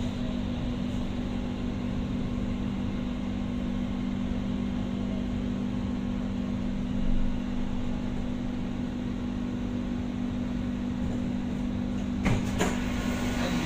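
Doha Metro train heard from inside its cabin while running through a tunnel: a steady hum of a few close tones over a low rumble of wheels on rail. A couple of sharp knocks come about twelve seconds in.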